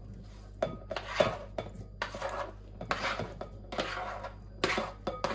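A plastic spatula scraping chopped vegetables off a plate into a glass mixing bowl: a run of irregular scrapes and knocks against the plate and bowl, with pieces dropping in.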